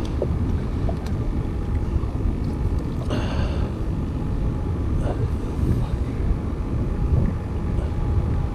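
Low, steady rumble of wind buffeting the microphone on a small fishing boat. A short high-pitched cry sounds about three seconds in.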